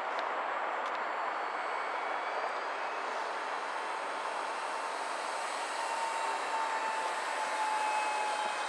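Electric motor and propeller of a radio-controlled HobbyKing Pietenpol Air Camper model plane whining in flight, louder and dropping slightly in pitch near the end as it passes, over a steady hiss.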